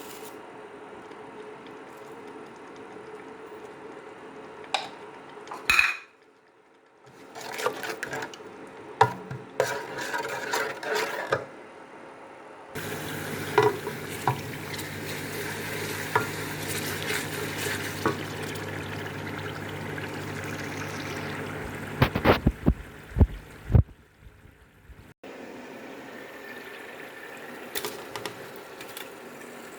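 Cooking sounds from a pot on the stove: a spoon stirring and scraping, with sizzling and sharp clinks and knocks of utensils against the pan. They come in several short clips, and a steady hum runs under the middle part.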